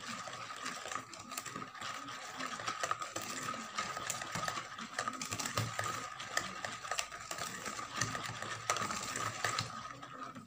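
Hand whisking of runny cake batter with a wire whisk in a plastic bowl: a quick, continuous clatter of the wires through the liquid and against the bowl.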